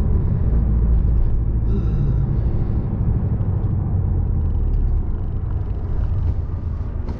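Steady low rumble of a Porsche 718 Boxster on the move, its 2.0-litre turbocharged four-cylinder engine and road noise heard from inside the cabin, with a brief high tone about two seconds in.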